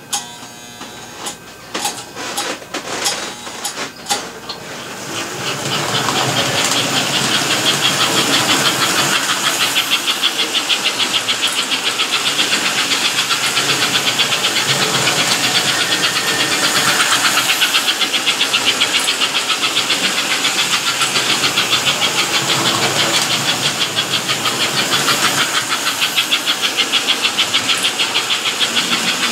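American Flyer S-gauge toy steam locomotive pulling freight cars: a few clicks, then about five seconds in it gets going and runs steadily around the track, its motor and wheels giving a loud mechanical whirr with a fast, even pulse.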